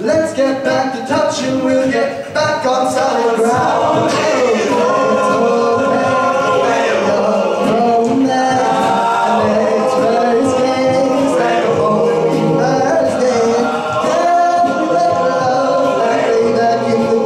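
Male a cappella group singing: a lead voice over close backing harmonies from the rest of the group, with no instruments.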